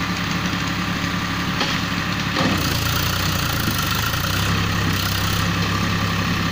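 Powertrac tractor's diesel engine running steadily under load while working a rear rotary tiller through flooded paddy mud. About two and a half seconds in, the engine grows a little louder and fuller, then holds steady.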